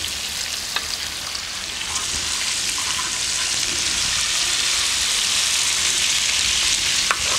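Beef flank and pork belly sizzling in hot fat on a disco, a round steel pan, as the meat sears and browns. A steady frying hiss grows a little louder about two seconds in, with a few light scrapes and clicks as a wooden spatula turns the pieces.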